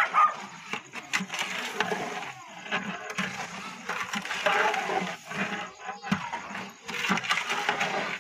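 Metal ladle stirring and scraping wet, undissolved sugar around a large metal cooking pot, a gritty scraping with frequent sharp clicks of the ladle against the pot. This is the sugar being dissolved in water to make the syrup for zarda.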